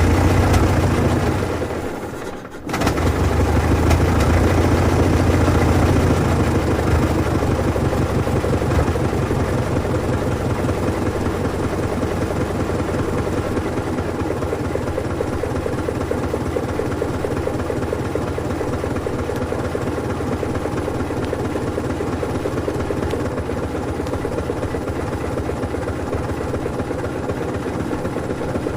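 1920s Ford Model T four-cylinder engine running with a fast, even firing rhythm. About two seconds in it dies down briefly, then comes back abruptly and runs steadily.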